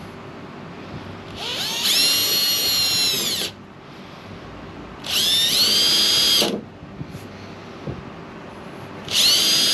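Electric drill with a twist bit pre-drilling holes through a thin board, running in three short bursts: each time the motor whine climbs in pitch as it spins up and drops as it stops. The third burst starts near the end.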